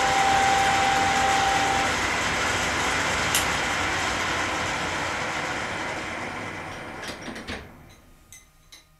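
Schaublin SV-51 milling machine running, its end mill cutting the radius on a steel support plate, with a high steady tone over the first two seconds. The machine noise then fades out over about two seconds as the machine winds down, leaving a few light clicks near the end.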